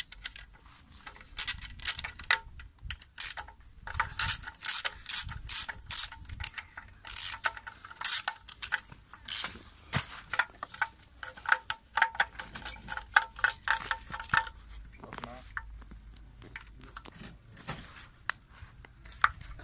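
Ratchet wrench clicking in quick, irregular runs as bolts are undone on a Chevy Spark 1.1 engine's oil pan, with a short lull near the end.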